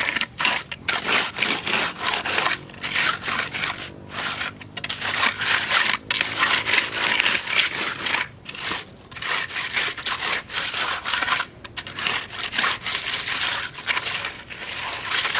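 Repeated scraping strokes of a hand tool working through wet cement mixed with gravel, spreading the concrete, with short pauses between bursts.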